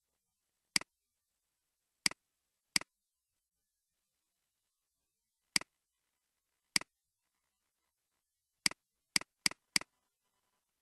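Computer mouse button clicks, each a quick double click-clack of press and release: nine in all, spaced out at first, with a quick run of four near the end.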